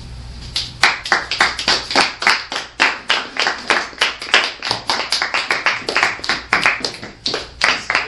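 Hands clapping in a quick, even run of distinct claps, about five a second, starting a little after half a second in.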